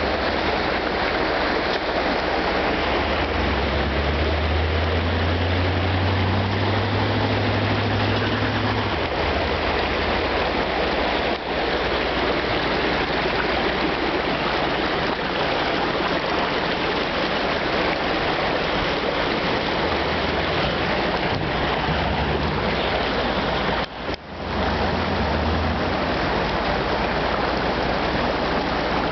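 Rushing creek water over rocks, steady throughout, with a lifted pickup truck's engine running low underneath, swelling louder twice. The sound drops out briefly near the end.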